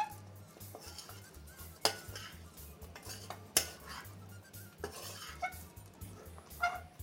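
A cooking utensil knocking and scraping against a kadai while the chicken and spice mixture is stirred, with about five sharp clinks spaced a second and a half to two seconds apart.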